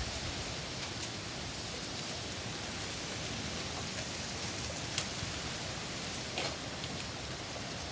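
Heavy rain falling hard and steadily, with a few sharp taps, the loudest about five seconds in.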